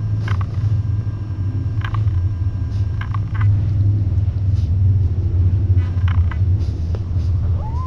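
Steady low rumble throughout, with a few faint clicks and squeaks, and one short kitten mew near the end that rises and then falls.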